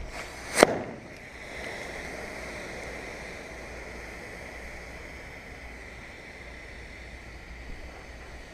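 A single sharp crack from an airsoft gun firing one shot about half a second in. A faint steady high-pitched hum follows.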